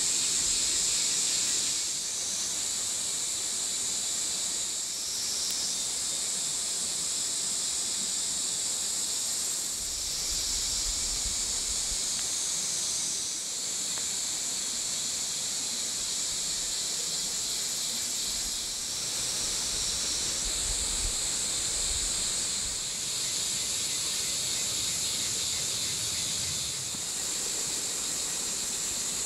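Steady high-pitched chorus of forest insects, an even hiss that shifts slightly a few times.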